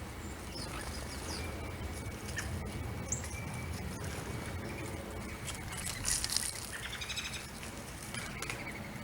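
Small birds chirping in short, high calls scattered every second or two, over a steady low background hiss.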